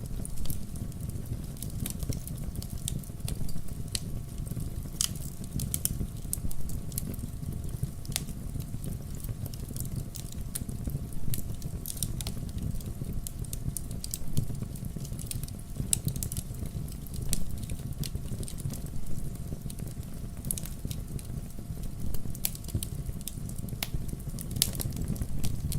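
Wood logs burning in a fireplace, crackling with frequent irregular sharp pops over a low, steady rumble of the flames.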